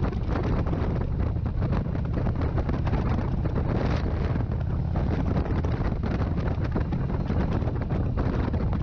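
Wind rushing and buffeting against the microphone over the low, steady rumble of a Harley-Davidson V-twin motorcycle engine cruising at road speed.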